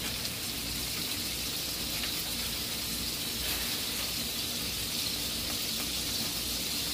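A stick of butter sizzling as it melts in a hot pan: a steady hiss.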